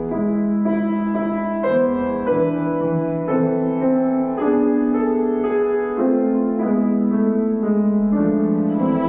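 Classical music with piano: a slow, legato melody in held notes stepping from pitch to pitch.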